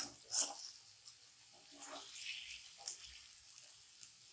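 Masala and boiled egg pieces sizzling in a non-stick kadhai, with a spatula scraping and knocking against the pan a few times as they are stirred and fried.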